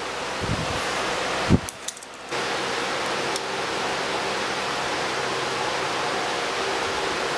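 Steady rushing noise in a metalworking shop, with two dull metal knocks in the first two seconds as a steel ring is worked with locking pliers on a round bar held in a vise. The louder knock comes about a second and a half in. After a brief dip the rushing noise continues evenly.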